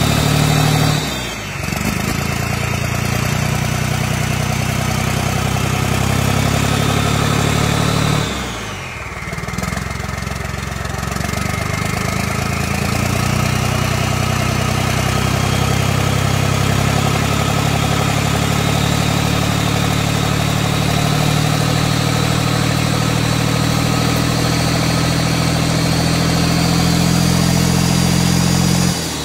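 Secondhand four-cylinder diesel engine running on a test stand. Its sound dips briefly about a second and a half in and again near nine seconds, then the pitch climbs slowly as the revs rise.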